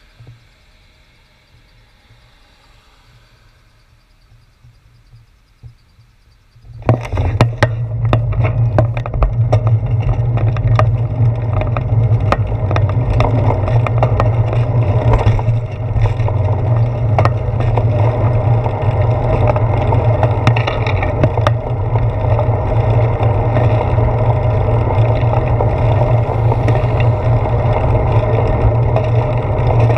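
Wind rumble and road vibration on a handlebar-mounted GoPro Hero 4 as a bicycle pulls away from a stop about seven seconds in and rides on. It is loud and steady, with many sharp clicks of the mount and housing rattling. Before that there is only faint traffic sound while the bike stands still.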